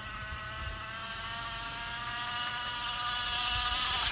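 Small plastic bottle held against a bicycle wheel's spokes, flapping fast enough to make a steady motorbike-like buzz. The buzz rises slightly in pitch and grows louder as the bike comes closer and speeds up, then cuts off suddenly near the end.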